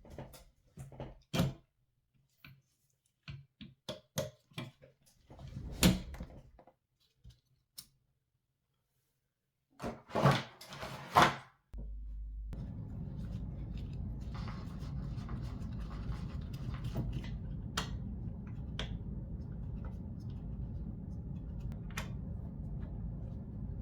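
Hands handling computer parts and packaging: scattered clicks, taps and knocks, with a louder cluster about ten seconds in. About halfway through a steady low hum sets in and continues, with a few faint clicks over it.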